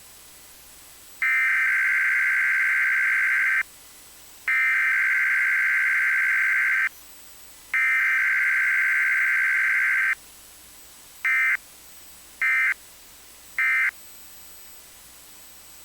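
Emergency Alert System SAME digital header: three data bursts of about two and a half seconds each, with short gaps between them, followed by three brief end-of-message bursts, over steady radio hiss. The header and end-of-message come with no attention tone or voice message between them, which is the form of an EAS Required Weekly Test.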